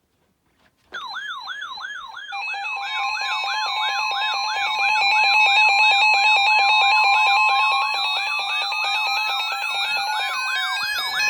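Layered electronic siren and alarm tones. A siren pitch yelps up and down about four times a second under steady and on-off beeping tones, and one tone glides steadily upward through the second half.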